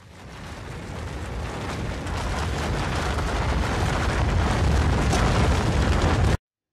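Avalanche rumble sound effect: a deep, heavy rumble with a hiss of rushing snow. It swells steadily louder, then cuts off abruptly about six seconds in.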